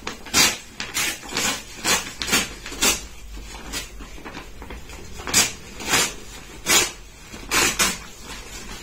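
A thick brown kraft-paper mailer bag being torn open by hand: about a dozen short crinkling rips, with a pause about midway.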